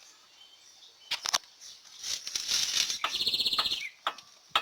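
Sharp knocks and clicks from a worn steering tie rod end and axial rod being rocked by hand, the clunk of the play in the joints. In the middle comes a louder rustling burst that ends in a rapid, even trill.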